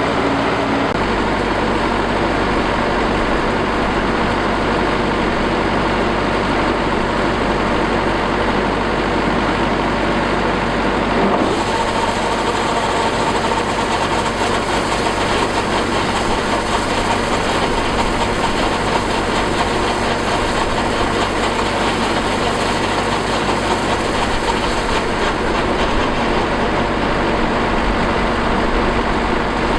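Combine harvester running steadily: loud engine and machinery noise throughout, with an abrupt change in tone about eleven seconds in.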